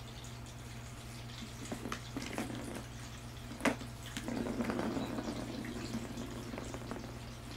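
A kitten's paw batting the ball in a circular plastic track toy: a few light clicks, a sharp knock about halfway, then the ball rolling around the track with a rumbling rattle that fades out near the end.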